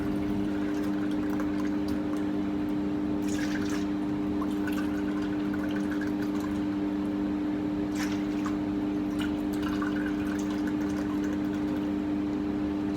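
Pineapple juice being poured onto raw chicken, with a steady low hum underneath and a few light knocks.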